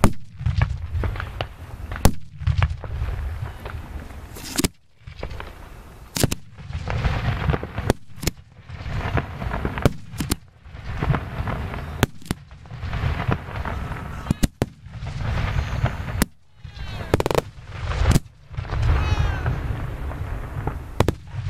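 Fireworks display heard close to the launch batteries: sharp bangs of shells firing and bursting about once a second, with crackling between them over a steady low rumble.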